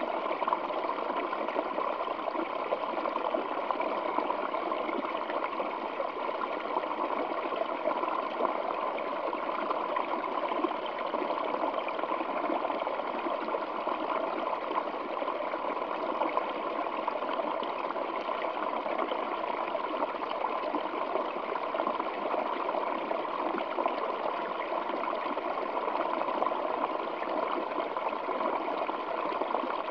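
Water of a small waterfall flowing over rocks, a steady splashing rush with no breaks.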